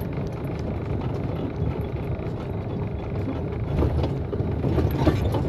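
Isuzu FVZ280 truck's diesel engine and road noise heard from inside the cab while driving, a steady low rumble.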